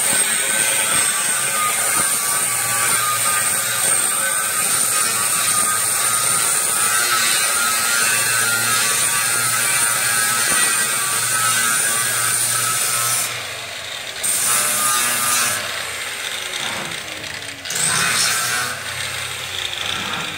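Angle grinder with a flap disc grinding rust off the edges of steel angle iron down to bright metal for welding: a steady high whine over the scrape of the disc. In the last seven seconds the grinding lets up and resumes a few times.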